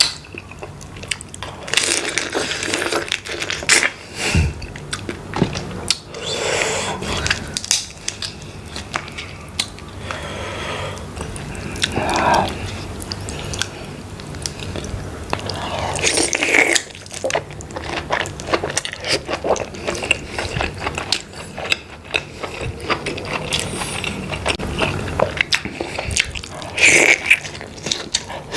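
Close-miked eating of shellfish in a buttery sauce: biting, chewing and crunching with wet mouth sounds, a steady run of small clicks and crackles with a few louder bites.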